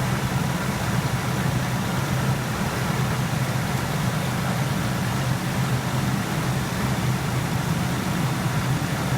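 2003 Ford F-150 pickup engine idling steadily.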